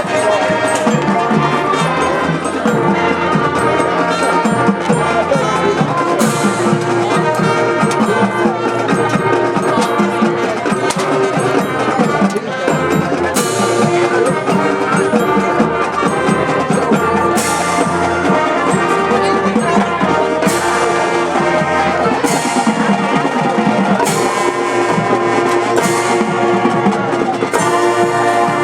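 High school marching band playing loudly, brass and percussion together in a full-band passage of western film music, with cymbal crashes every few seconds.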